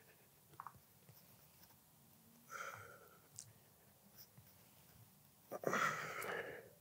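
A man breathing out hard twice, a few seconds apart, on the downward pull of kneeling cable crunches; the second breath is louder and lasts about a second. A few faint clicks come between them.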